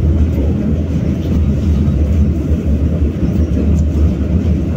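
BKM-60102 tram running along the track with a steady low rumble.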